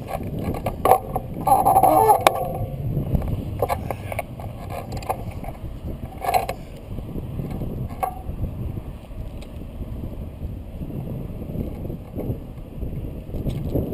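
Road bike descending a rough, gravelly mountain road: wind rushing over the microphone and tyre rumble, with a few sharp clicks and rattles and a brief higher tone between one and two seconds in.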